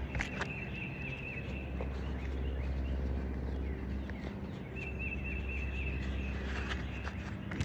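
A bird singing two short runs of quick repeated chirps, over a steady low hum.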